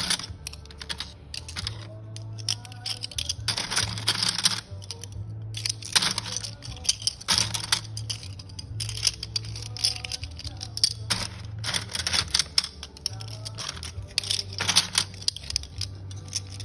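Small circuit boards (LCD tester connector adapter boards) clicking and clattering against each other and a plastic tub as they are rummaged through by hand, in irregular bursts, over background music.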